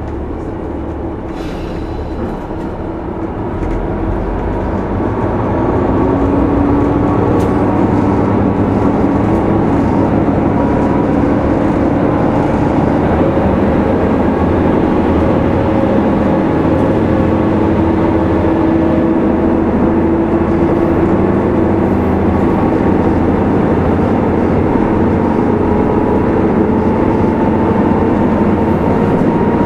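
Interior running sound of a JR KiHa 75 diesel railcar pulling away and accelerating. The engine and running noise build up over the first few seconds, then hold steady while the drive tones slowly rise in pitch.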